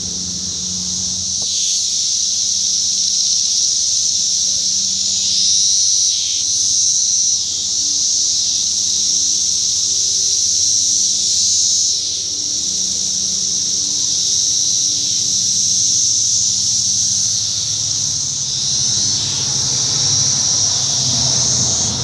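A chorus of Brood X periodical cicadas: a loud, steady, high-pitched buzzing drone that swells and eases slightly but never stops.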